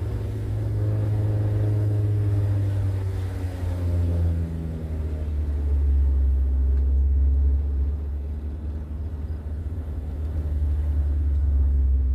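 A 1996 Honda Prelude Si's H23A1 four-cylinder engine and tyres, heard from inside the cabin on the move: a steady low rumble, with the engine note shifting a little in the first few seconds.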